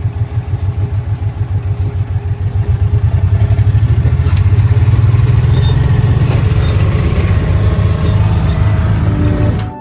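Small vehicle engine running close by with a rapid low pulsing rumble, getting louder about three seconds in.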